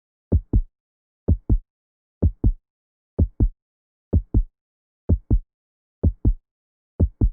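Heartbeat sound effect: a steady lub-dub, each beat a pair of low thumps in quick succession. Eight beats in all, at a slow, even rate of a little over one a second.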